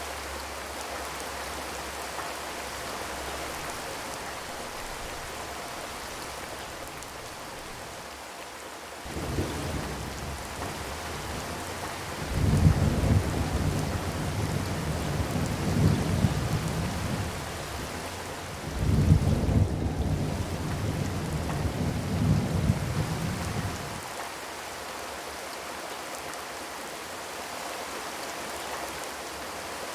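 Steady rain pattering on a zinc roof. A deep rolling rumble swells in about a third of the way through, peaks twice and dies away about four-fifths of the way through.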